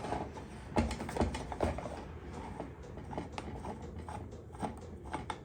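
Irregular metallic clicks and knocks from a cast iron cross vice being worked by hand and tools while it is taken apart.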